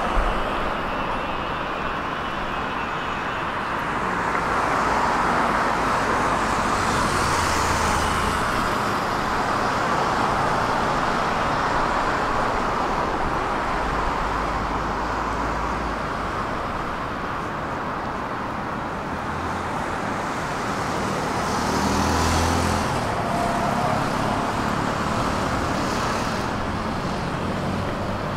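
Road traffic noise: a steady wash of cars driving past, tyres and engines. It swells as vehicles pass closer about a quarter of the way in and again about three-quarters through.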